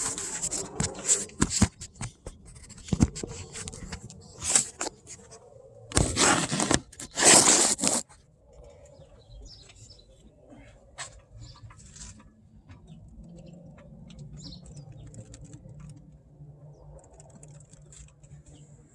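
Hand tools and metal hardware being handled while an engine mount is put back together: scattered clicks, knocks and scrapes, with two louder scraping noises about six and seven seconds in, then only occasional light clicks.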